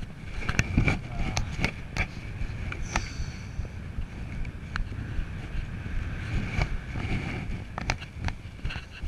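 Airflow buffeting the microphone during paraglider flight: a gusty rush of wind noise, broken by scattered sharp clicks and flaps.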